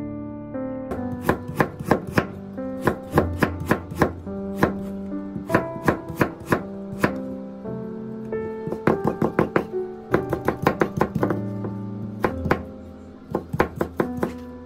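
Chef's knife slicing burdock root on a wooden cutting board: sharp knocks of the blade on the board in uneven runs, starting about a second in, over soft background music.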